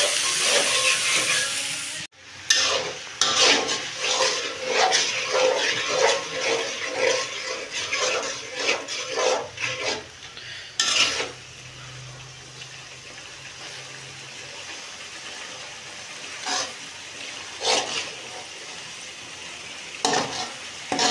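Onion, tomato and ground-spice masala sizzling in oil in a large metal karahi while a metal spatula scrapes and stirs it against the pan in quick repeated strokes, the sautéing (koshano) stage where the masala cooks down in the tomato's own juice. The sizzling is loud at first, the sound drops out briefly about two seconds in, and after about eleven seconds the frying goes quieter with only a few scattered stirring strokes.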